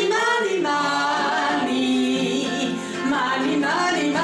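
A woman singing long, drawn-out notes whose pitch wavers and slides, over a steady instrumental accompaniment.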